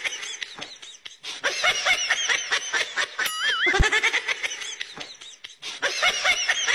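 Laughter in quick runs of short bursts, with a brief wavering whistle-like tone a little past three seconds in.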